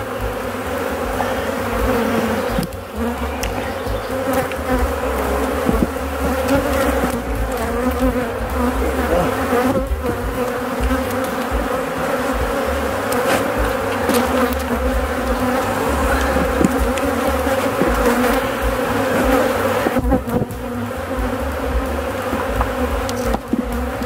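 Honeybees buzzing around an opened hive box packed with bees: a dense, steady hum, with a few light knocks.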